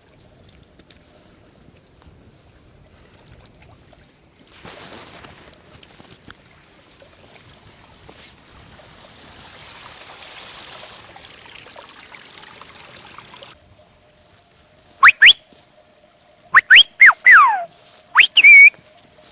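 Water splashing and trickling as hands scoop and rub in a shallow mountain stream. Near the end come several loud whistle-like calls: two quick rising chirps, then a few falling sweeps and a short warble.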